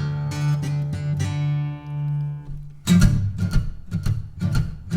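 Acoustic guitar playing the intro to a blues song. A note is held and left ringing at first, then a steady rhythmic picked and strummed pattern starts about three seconds in.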